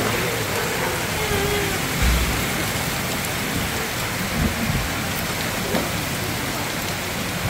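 Hail and rain falling hard in a steady, dense hiss on the roofs and awnings of a courtyard, with a couple of low thumps about two and four and a half seconds in.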